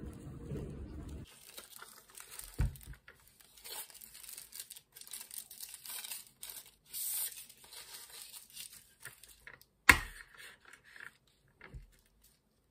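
Crinkling and tearing of a plastic straw wrapper, then one sharp, loud pop about ten seconds in as the bubble tea straw is stabbed through the cup's sealed plastic film lid.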